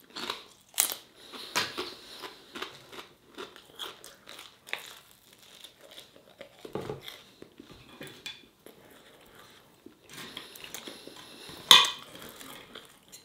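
A person chewing and crunching food close to the microphone while eating chips and garlic flatbread. Near the end there is a sharp clink of a knife and fork on the plate.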